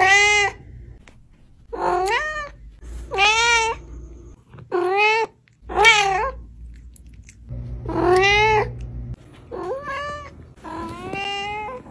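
A cat meowing over and over: about eight short meows, each under a second long, spaced a second or two apart.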